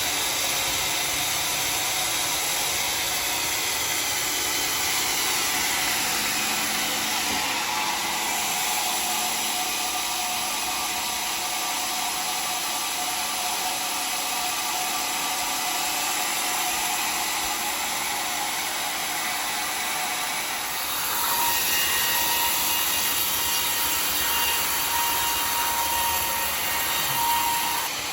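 Homemade sawmill blade cutting through a dry, very hard acacia log: a steady sawing noise that grows a little louder about three-quarters of the way through, with a faint high ringing tone added.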